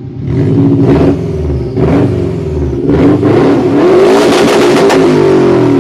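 Subaru Impreza GT's flat-four boxer engine revving hard, its pitch rising and falling several times, with short breaks about one, two and three seconds in.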